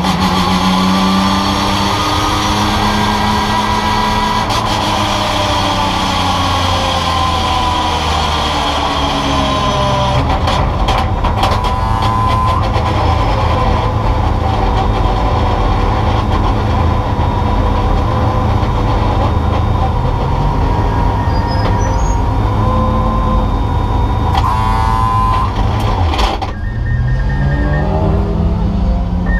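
Porsche 911 GT3 Cup's flat-six engine heard from inside the cockpit, with the revs falling and rising over the first few seconds as it slows. It then runs steadily at low revs along the pit lane. Near the end the engine drops toward idle and picks up again briefly.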